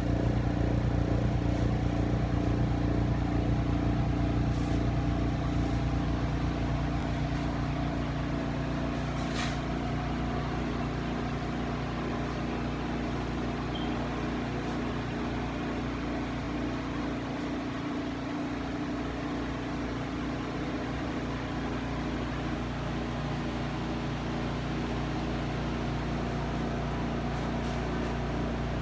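Steady mechanical hum of a running machine, a little louder over the first several seconds and then even, with one brief tick about a third of the way in.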